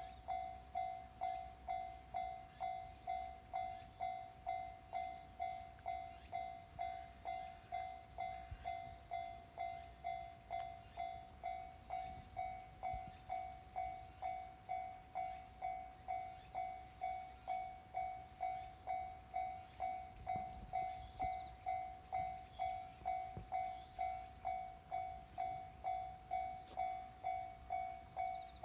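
Japanese level-crossing warning bell ringing, one bright tone struck over and over at a steady rhythm of about one and a half strikes a second: the crossing's alarm, which signals that a train is approaching.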